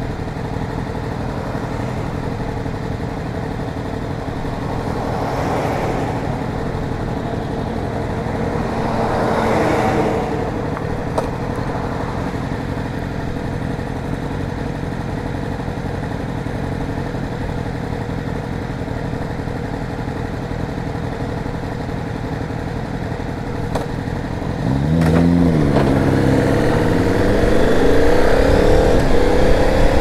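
KTM 990 Super Duke's V-twin idling steadily while stopped, with two brief louder swells in the first ten seconds. About 25 seconds in it revs up and pulls away, the pitch rising again and again through the gears.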